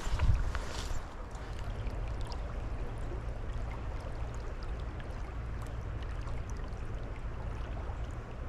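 Mountain trout stream running steadily, with a brief louder thump in the first second.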